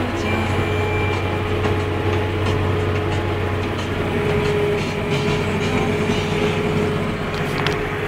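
Deutz-Fahr Agrotron 150.7 tractor's six-cylinder diesel engine running steadily under load while pulling a reversible plough, heard from inside the cab: a low drone with a steady whine over it.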